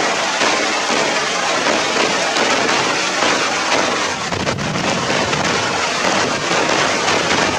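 Steady rain falling on the ground, a dense, even hiss.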